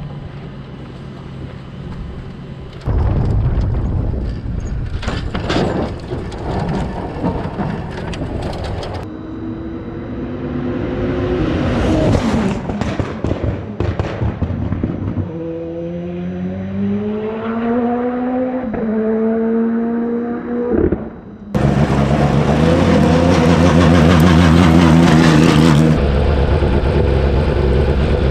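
Race car engine at full throttle, heard in several clips cut together. In the middle the engine pitch rises and drops back in steps as the car accelerates through its gears.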